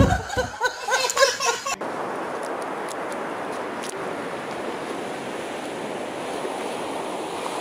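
Steady beach ambience of surf washing on the shore, with wind on the microphone. It starts abruptly about two seconds in, after a child's voice and a few low thumps.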